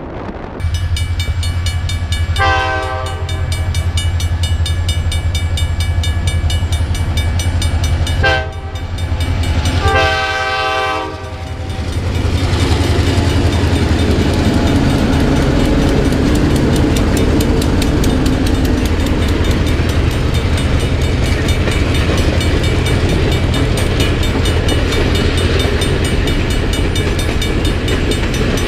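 Diesel locomotive passing close, its engine running low and steady while its air horn sounds three blasts: two short ones, then a longer one about ten seconds in. After that, the passenger cars roll by with a steady rush of wheel noise.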